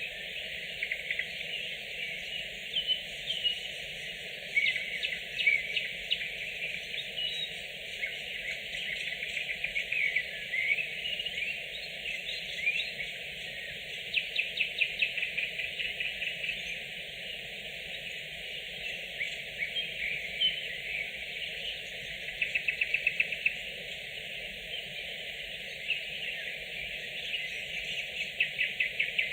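Nightingales singing: phrases of quick whistled notes broken by several fast rattling runs of evenly repeated notes, over a steady faint background hiss.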